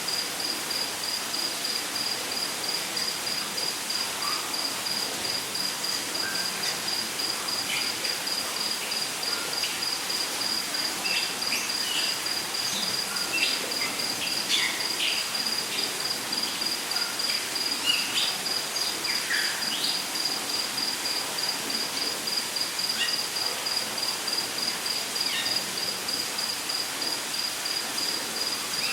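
Rainforest ambience: an insect trilling steadily in a fast, even high-pitched pulse, with short, scattered bird chirps that mostly fall in pitch, over a soft even hiss.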